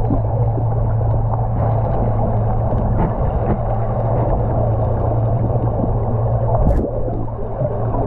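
Muffled underwater noise picked up by a submerged camera: a steady low hum under a dense dull wash. There is one sharp click a little under two-thirds of the way through.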